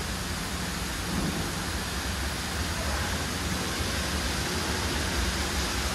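Steady rushing and splashing of water around a ride boat in a water tunnel, with a low rumble underneath.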